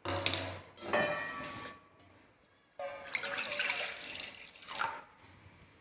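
Water running into a pot, in two stretches with a short pause between them about two seconds in.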